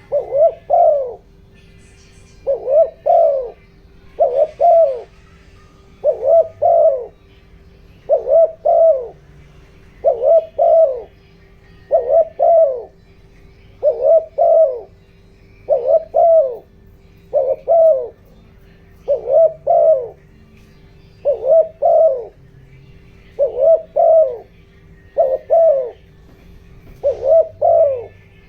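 Spotted dove cooing in short three-note phrases, repeated steadily about every two seconds. This is the male's rapid territorial coo, used as a lure call to excite wild doves.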